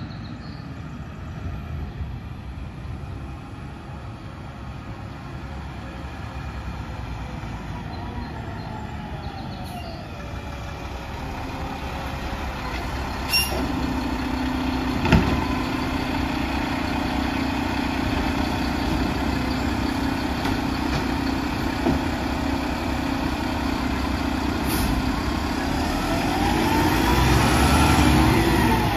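Garbage truck engine running, a Mack LR side loader. A steady whine joins the engine about halfway, with a single sharp knock just after. Near the end the engine sound rises in pitch and grows louder.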